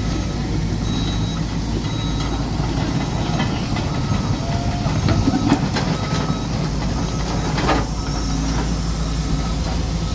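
Diesel engine of a backhoe running steadily, with a few short metallic clanks about halfway through and again near the end.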